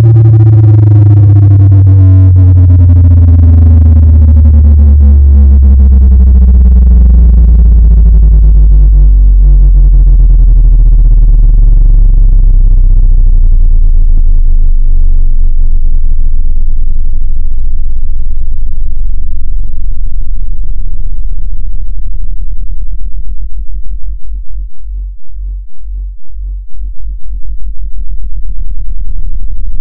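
Loud speaker-cleaning tone: a low electronic tone that glides down in pitch over the first several seconds, then holds as a deep hum. Near the end the hum wobbles rapidly in loudness.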